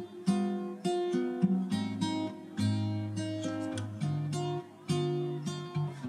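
Background music: an acoustic guitar playing a tune of plucked notes, each note fading before the next.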